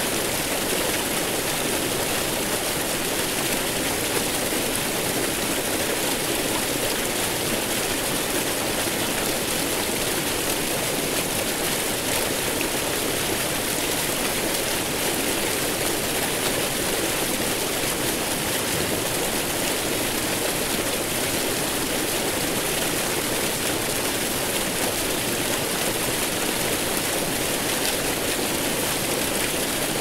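Niagara Falls' water rushing down in a steady, unbroken roar of white noise, even in level throughout, with no separate splashes or breaks.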